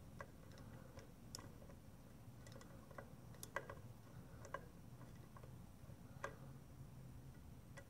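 Faint, irregular clicks and ticks as a homemade chaser bolt is turned through a rocker-arm bolt hole in an aluminum cylinder head, cleaning out the threads, over a low steady hum.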